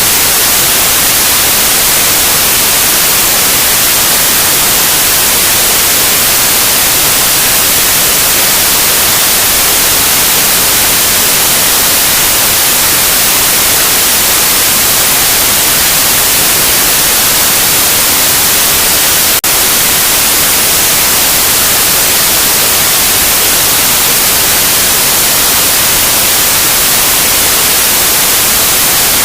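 Loud, steady white noise: an even, unbroken hiss. A split-second dropout breaks it once, about two-thirds of the way through.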